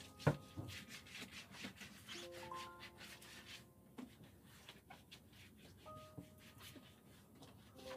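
Soft background music of held piano-like notes, over a cloth rubbing and wiping across a hard floor in irregular strokes, with one sharp knock just after the start.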